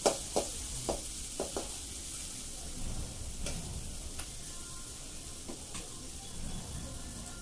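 Flat metal spatula scraping and knocking against a metal kadai as frying food is stirred, several sharp knocks in the first two seconds. After that the food keeps sizzling steadily in the pan, with a few fainter taps.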